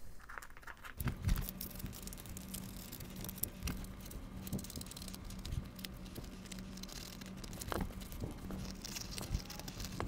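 Scissors snipping through the fabric cover of a soft body armour panel, with irregular small clicks, rustling and crinkling of fabric and plastic wrap as the cover is cut and peeled back. A faint steady low hum runs underneath.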